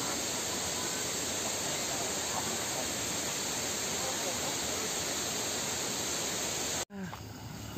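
Steady, even rushing noise that cuts off abruptly about seven seconds in, leaving a quieter background with faint voices.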